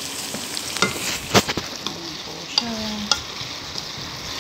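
Chicken pieces sizzling as they fry in oil in a pan, stirred with a utensil that scrapes and knocks against the pan a few times, sharpest about a second and a half in.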